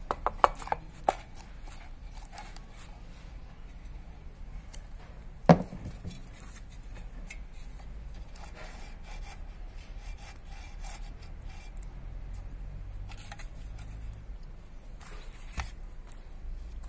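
Hand work on a power tiller's recoil starter: a few sharp clicks in the first second, a single loud knock about five and a half seconds in, and low handling noise between.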